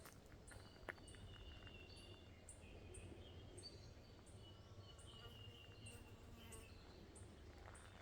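Faint birdsong in native bush: short high calls come and go throughout, over a high tick that repeats about twice a second. There is a single sharp click about a second in.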